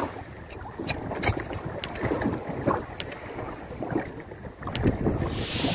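Wind on the microphone and water moving against a small outrigger boat at sea, with scattered light knocks and clicks as a fisherman handles his handline gear, and a brief hiss near the end.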